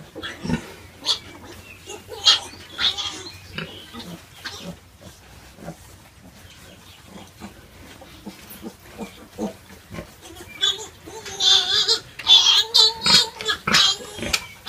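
Pigs: a litter of young piglets squealing at a nursing sow, with short low grunts between the squeals. The squeals grow louder and more frequent over the last few seconds.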